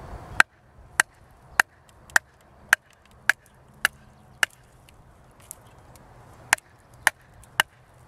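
A wooden branch used as a baton strikes the spine of a fixed-blade bushcraft knife, driving the blade down through a knotty upright stick to split it. The sharp knocks come about two a second, eight in a row, then a pause of about two seconds and three more.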